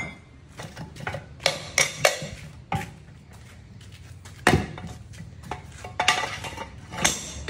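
Irregular sharp metallic clanks and knocks as the heavily rusted cylinder liner of a D24 engine block is worked loose, with a short quieter stretch in the middle.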